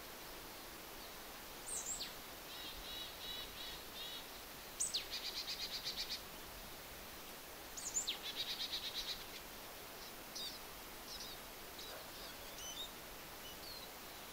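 A small songbird singing a short song, a sharp high falling note followed by a fast even trill, three times about three seconds apart, with softer scattered chirps between.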